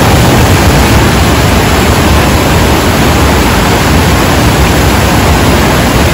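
Steady, loud rush of river water tumbling over small rocky cascades.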